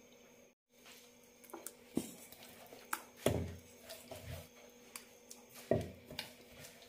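A few scattered knocks and soft thuds as ground tapioca paste is transferred from a steel mixer jar into a glass bowl of batter.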